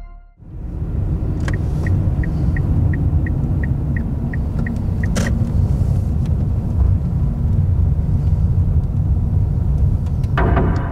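Inside a moving car's cabin: steady low engine and road rumble. From about a second and a half in, a turn-signal relay ticks about three times a second for about three seconds, followed by a single sharp click. Music comes in just before the end.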